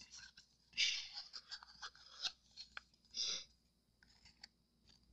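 Plastic stir stick scraping the inside of a paper cup to get the last of the clear resin out: short, faint rasps and small clicks, the strongest about a second in and again just after three seconds.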